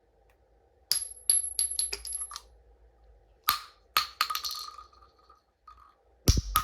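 Loose ammunition cartridges dropped onto a hard floor, clinking and bouncing in quick flurries of small metallic hits, some leaving a brief ring. The drops come in three groups, and near the end a heavier hit lands with a deeper thud.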